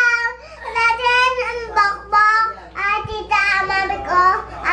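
A little girl singing in a high voice, in short phrases of held, wavering notes.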